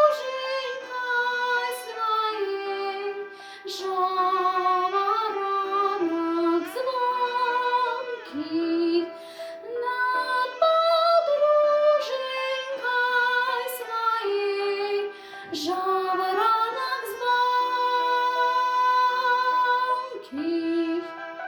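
A young solo singer singing a melody over instrumental accompaniment, the voice gliding between held notes.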